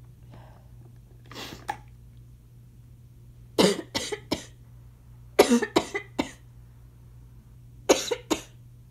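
A person's asthma cough, in three short fits of two to four coughs each, the fits about two seconds apart.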